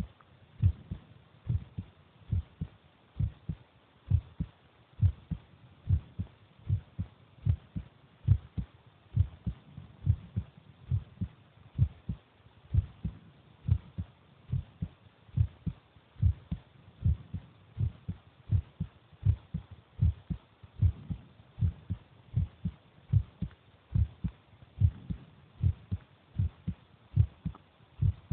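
A person's heartbeat heard close up: a steady, regular run of low thumps.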